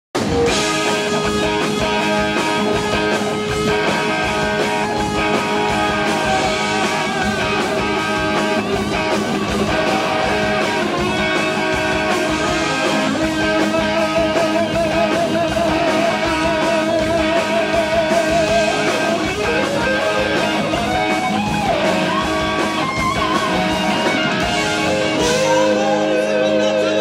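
Live rock band playing loud, with drums, bass and rhythm guitar under a lead electric guitar that holds long notes with wide vibrato and bends them upward from about fourteen seconds on.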